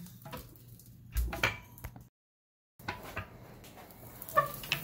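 Metal clinks and scrapes of a grill tool working the cooking grate of a Big Green Egg ceramic kamado grill, with a heavier dull thump about a second in. The sound cuts out briefly halfway through.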